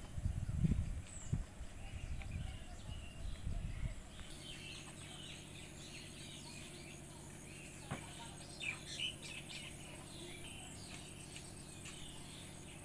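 Low rumbling noise for about the first four seconds, then birds chirping on and off over a faint steady hum.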